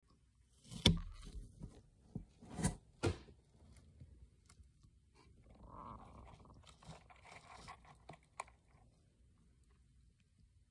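Dwarf hamster cracking and chewing seeds from a seed mix. A few sharp cracks come in the first three seconds, the loudest about a second in, followed by softer nibbling clicks and rustling of the seeds.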